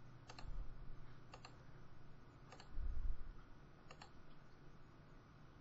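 Four faint computer mouse clicks, spaced about a second or more apart, with a soft low thump about three seconds in.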